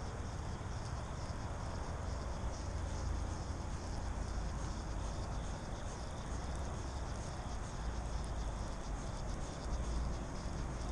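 Insects trilling steadily in the background over a low rumble, with no speech.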